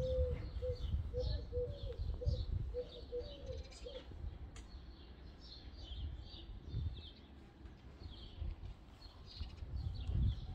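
Small birds chirping throughout, with a pigeon cooing a run of short low notes for about the first four seconds.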